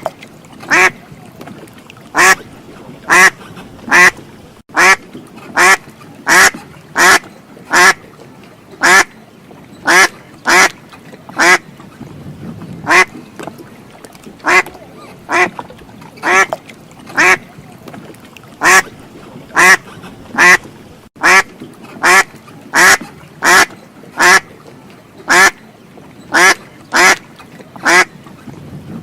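Duck quacking over and over, short loud quacks coming about one to two a second at an uneven pace.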